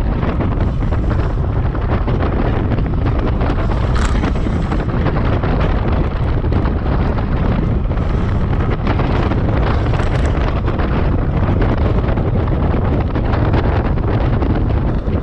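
Loud, steady wind buffeting on a GoPro's microphone as the bicycle rides at about 25 mph.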